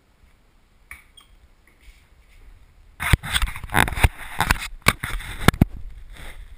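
A few faint clicks, then about three seconds in a sudden loud rumbling noise with repeated sharp thumps on the camera's own microphone, as the camera is jostled and moved about.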